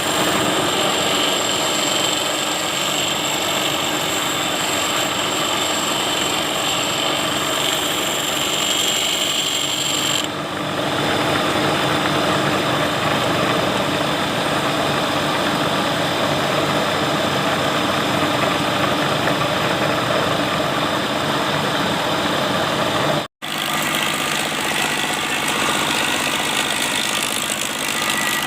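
Electric grinder running steadily while shaping a hardened steel planer-blade offcut into a profile cutter. About ten seconds in, the high whine stops and a rougher, fuller grinding noise takes over. Near the end it breaks off for an instant, then carries on.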